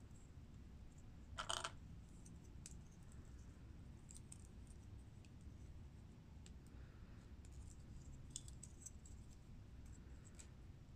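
Small plastic SY clone-brick minifigure pieces clicking and tapping as they are fitted together by hand: a short louder cluster of clicks about a second and a half in, then a few faint scattered ticks.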